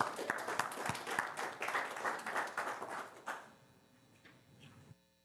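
Congregation applauding. The clapping dies away after about three and a half seconds.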